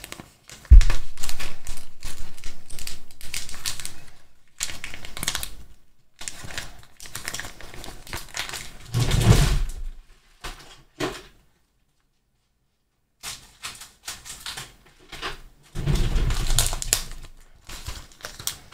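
A package of face-mask filters being opened and handled: irregular rustling and clicking in bursts, with a loud thump about a second in and a brief silent pause past the middle.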